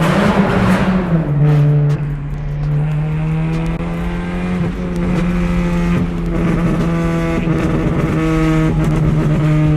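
Volkswagen Jetta MK3 with its muffler cut out, the engine and exhaust running loudly at steady revs with a fairly constant pitch.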